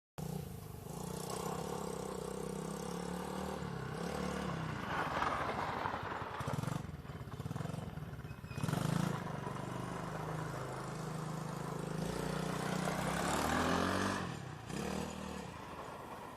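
Small ATV engine running, its pitch rising and falling with the throttle, with a rev up about two-thirds through, then fading away near the end.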